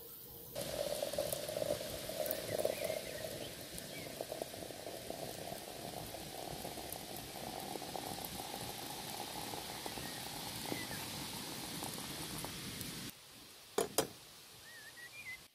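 Water running from a samovar's tap into a glass teapot, a steady splashing stream whose pitch rises slightly as the pot fills. The stream stops suddenly near the end, followed by two sharp clinks.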